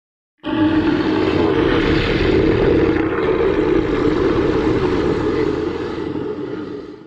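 Creature roar sound effect built from a bull's bellow: one long, rough, rumbling roar starting about half a second in and lasting about six seconds before fading out.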